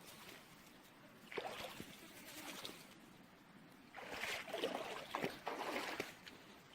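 Water splashing and sloshing in two irregular surges, the second longer, about four seconds in.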